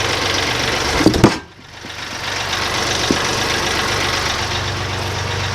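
Portable bandsaw sawmill's gas engine running steadily. About a second in there are a couple of short knocks, then the sound drops away sharply and builds back up over about a second.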